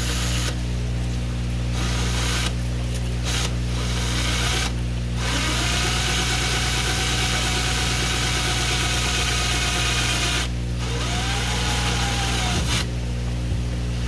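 Ryobi cordless drill boring a small pilot hole through a fiberglass tank wall. It runs in a few short trigger bursts, then steadily for about five seconds, then once more with its motor whine dipping and rising, and stops near the end.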